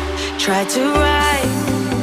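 A pop song with a steady beat, bass and a sung melody.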